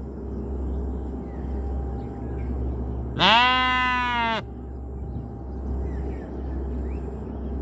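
A sheep bleats once, a little over three seconds in: one drawn-out, wavering call that rises at the start and then holds, about a second long, over a steady low background rumble.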